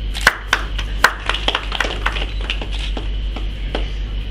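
A few people clapping, sparse and uneven, dying away before the end. A steady electrical hum runs underneath.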